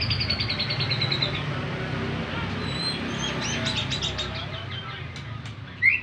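White-rumped shama singing: a fast run of high, evenly spaced notes slowly falling in pitch, a few faint chirps, a second quick run of notes past the middle, and a louder rising whistle near the end, over a low steady hum.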